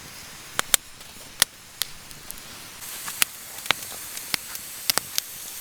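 Food frying in a pan: a steady sizzling hiss with sharp spattering pops, growing a little louder about three seconds in.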